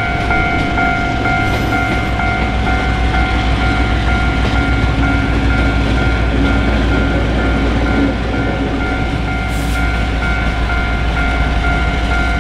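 Train running with a steady heavy low rumble, over which an electronic tone pulses about one and a half times a second alongside a steady higher ringing; the tones stop near the end.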